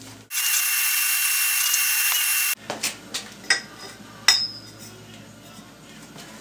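Shop vac running with a loud steady rush and a thin whistle, vacuuming metal swarf out of a milling machine head. It starts a moment in and cuts off abruptly after about two seconds, followed by a few sharp clicks.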